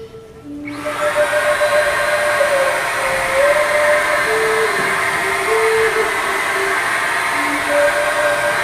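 TOTAL electric paint spray gun switched on about half a second in, its motor running steadily with a loud airy hiss as it sprays paint.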